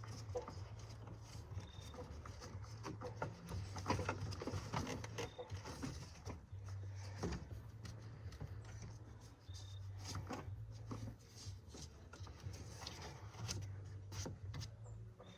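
Faint irregular clicks, taps and rubbing as parts are handled and fitted back in place during the battery reinstall, over a low steady hum.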